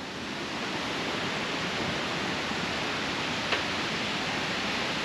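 Steady rushing noise of a waterfall, an even hiss with no pitch. A single faint click about three and a half seconds in.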